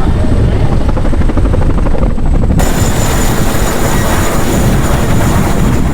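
Firefighting helicopter flying low and close, its rotor giving a loud, rapid chop. About two and a half seconds in, a loud hiss suddenly joins it.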